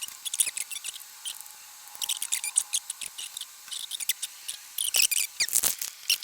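Light clicking and scratching of small parts being handled in a tube radio's dial-string mechanism, in quick irregular clusters with a brief lull in the first couple of seconds.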